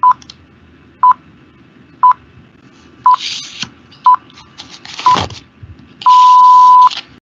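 Countdown-intro beeps: a short high beep once a second, six times, then one longer beep at the same pitch about six seconds in. Rushing swish sounds come in under the later beeps, loudest with the final long beep.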